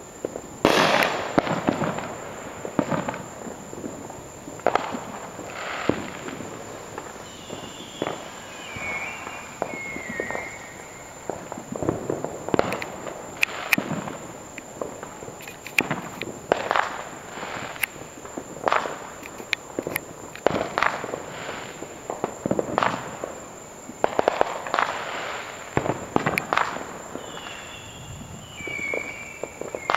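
Fireworks going off all around in many sharp bangs and crackles at irregular intervals, the loudest bang about a second in. A brief falling whistle is heard twice, about eight seconds in and again near the end.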